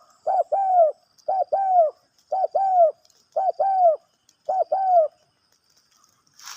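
Spotted dove (tekukur) cooing: a two-note phrase, a short note followed by a longer arched coo, repeated five times about a second apart and stopping about five seconds in. The keeper calls this voice big and stuttering ("gagap").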